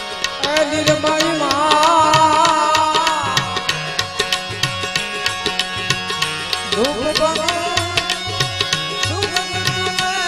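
Live devotional folk music: tabla playing a quick, steady rhythm over a harmonium's held chords, with a singer drawing out long, wavering notes twice.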